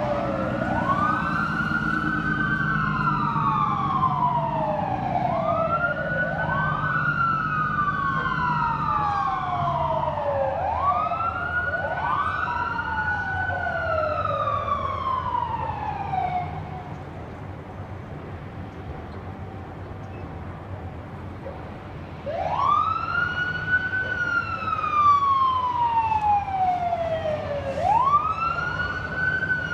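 Fire engine sirens wailing, each cycle climbing quickly and sinking slowly, about every four to five seconds, with two sirens overlapping at times. The wail drops away for a few seconds past the middle, then returns loud near the end.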